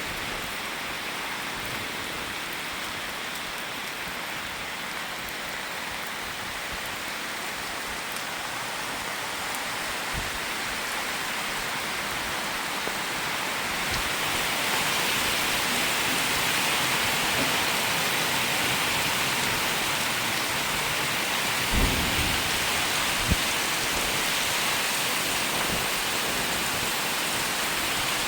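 Steady rain, growing heavier about halfway through, with a few brief low thumps.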